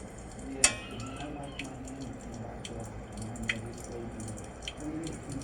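Hot water running steadily from an open faucet, with a sharp click about half a second in and a fainter click a few seconds later.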